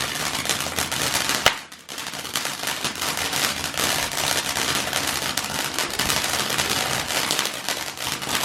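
Fireworks crackling in a rapid, continuous stream of small pops, with one louder bang about a second and a half in.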